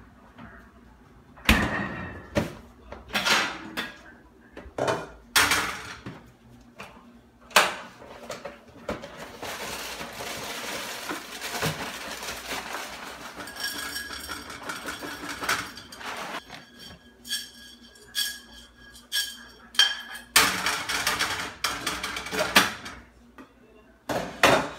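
Kitchen clatter: a string of sharp knocks and clinks from bottles, a frying pan and dishes being handled, with two longer stretches of rustling from a cardboard snack box being handled.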